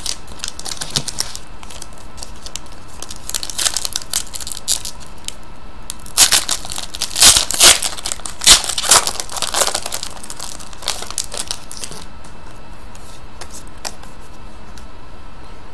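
Clear plastic wrapper of a trading-card pack crinkling as it is torn open and crumpled by hand, in sharp bursts that are loudest from about six to ten seconds in.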